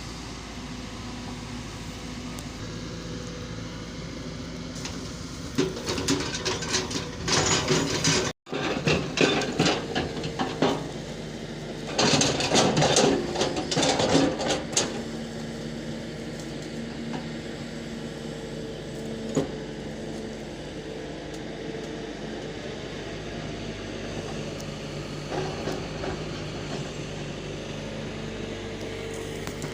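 A machine running with a steady hum, broken by two spells of loud clattering and knocking, about six seconds in and again about twelve seconds in, each lasting a few seconds.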